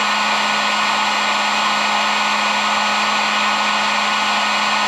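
Electric heat gun running steadily, a constant whir of fan and rushing hot air over a low steady hum, held on a solder-seal heat-shrink connector to melt it.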